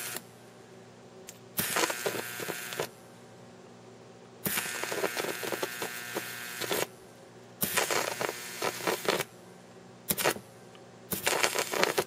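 Microwave oven transformer and its ballast transformer buzzing under load each time a rectified, smoothed DC arc is drawn with a screwdriver. There are five bursts of buzzing, from a fraction of a second to about two seconds long, with a fainter steady hum between them. The arc itself is completely silent.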